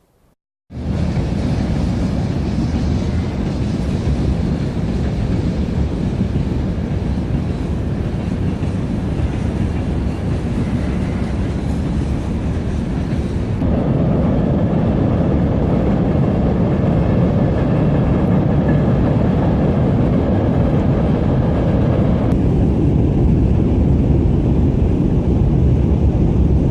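Swollen small river rushing in flood after rain: a loud, steady noise of fast water, heaviest in the low end. It shifts abruptly about halfway through and again near the end.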